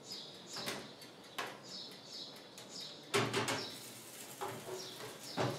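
A fluted tart dish being set on a metal baking tray in an oven and pushed into place: a few knocks and scrapes, the loudest a clunk about three seconds in.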